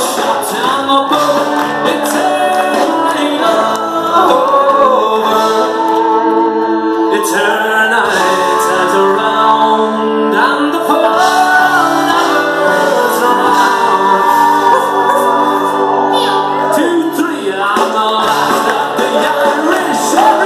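Live band playing an Irish folk song with a male lead singer, heard loud and continuous in a theatre.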